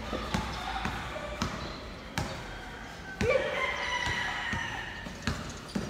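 Basketball bouncing on a hard court, a string of irregularly spaced thuds from dribbling and play, with a drawn-out call about three seconds in.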